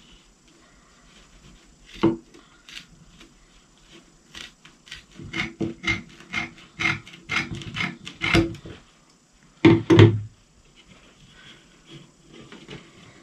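Scissors snipping through jute upholstery webbing, a run of short crisp cuts from about four to eight and a half seconds in. A heavier knock about ten seconds in is the loudest sound.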